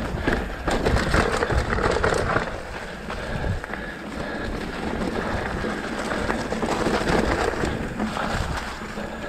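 Mountain bike rolling down a dirt singletrack: tyres on soil and dry leaves, with a constant clatter and rattle from the bike over bumps and a low rumble underneath.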